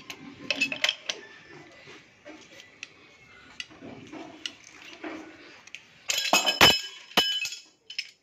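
Metal clinks and clicks of a pipe wrench being handled on a galvanised iron pipe elbow, with a louder metallic clatter and a heavy knock about six to seven seconds in.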